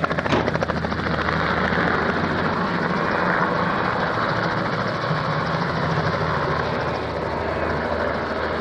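Helicopter running, its rotor blades chopping in a fast, even rhythm over a steady engine drone.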